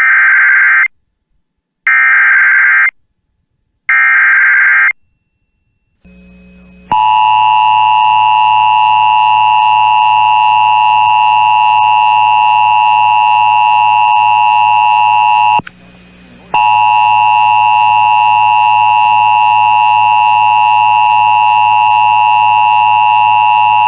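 Emergency Alert System alert on NOAA Weather Radio: three one-second bursts of screeching SAME header data about a second apart, then the long, steady attention tone. The tone drops out for under a second about two-thirds of the way through, then resumes. It signals that a warning message is about to be read.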